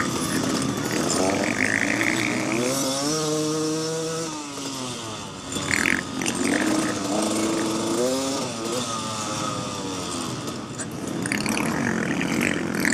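KTM 300 XC-W two-stroke dirt bike engine revving hard and shifting, its pitch climbing and dropping several times.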